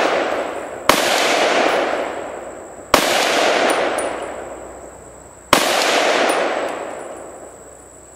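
A .300 Blackout AR pistol firing supersonic rounds: three single shots about two to two and a half seconds apart, each followed by a long rolling echo that fades over a couple of seconds.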